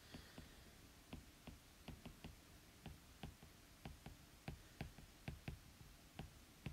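Faint, irregular taps and clicks of a stylus on a tablet's glass screen during handwriting, about three or four a second.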